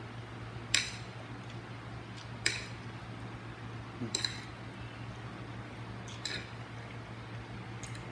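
Eating utensils clinking against a plate or bowl: about five separate short clinks, a second or two apart, over a steady low hum.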